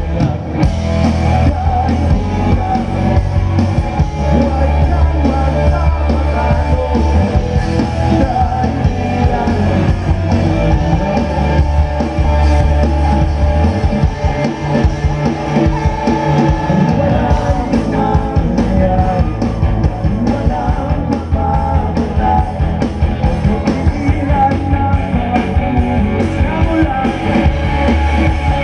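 Live rock band playing loudly, with guitars, drums and a singer.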